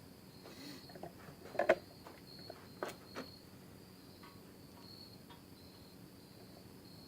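A few sharp clicks and knocks of equipment being handled, the loudest about a second and a half in, over a faint high-pitched chirping that comes and goes.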